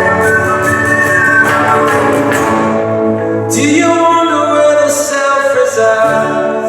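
Live band music in an instrumental passage of a song: sustained melodic notes, some gliding in pitch, over a steady bass note, with a new chord coming in about three and a half seconds in.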